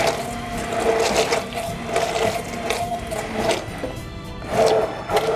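Hand-held immersion blender running in a container of emulsifying truffle mayonnaise, its motor whine rising and falling in strength as it is worked through the sauce while oil is poured in. The mayonnaise is close to set.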